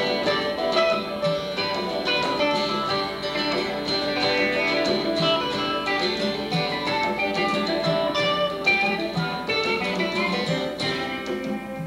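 Live band music led by guitar, with keyboard. It trails off about a second before the end.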